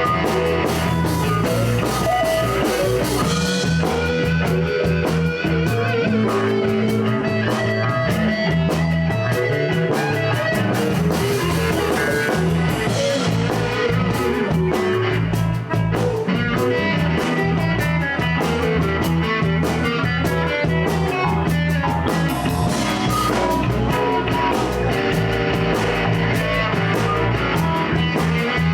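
A live blues band playing: guitar over bass and drum kit, steady and loud without a break.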